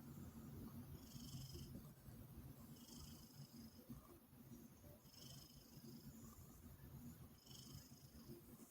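Domestic cat purring softly and steadily, a low rapid rumble, with a faint high-pitched hiss that comes back about every two seconds.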